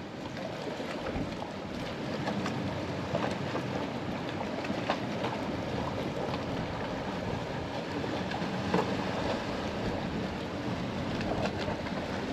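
Wind buffeting the microphone outdoors: a steady low rumble and hiss, with a few faint short clicks scattered through it.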